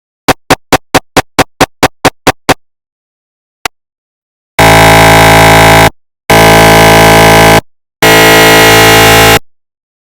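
Synthesized recreation of GE 750w 3T MRI scanner noise: a quick run of about ten sharp beeps, about four a second, then a lone click, then three loud buzzing tones of just over a second each, separated by short gaps.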